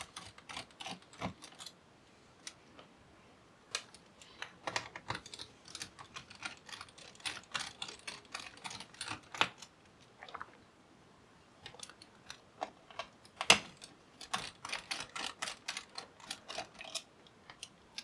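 Faint, irregular clicks and ticks from a precision screwdriver undoing the small screws of a laptop cooling fan, coming in clusters with short pauses and one sharper click past the middle.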